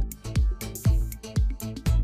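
Electronic dance music with a steady kick drum about twice a second and hi-hats ticking between the beats.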